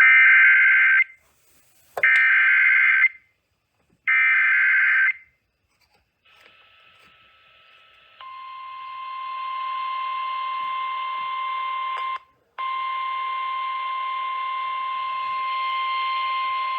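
NOAA Weather Radio Emergency Alert System signal over a radio receiver: three screechy digital SAME header bursts, each about a second long, then a rise of radio hiss and the steady 1050 Hz weather alert tone, which drops out briefly about 12 seconds in. This signal marks the start of a severe thunderstorm warning.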